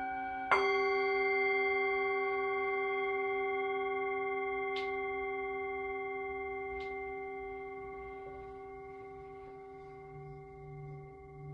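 Singing bowl struck once about half a second in, ringing with several steady overtones and slowly fading, over the lingering ring of a bowl struck just before. A low, wavering tone comes in near the end.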